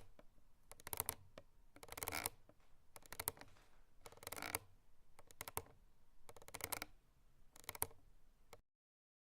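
Hemp rope creaking: a series of short creaks, each a rapid run of tiny clicks, coming about once a second and stopping abruptly near the end.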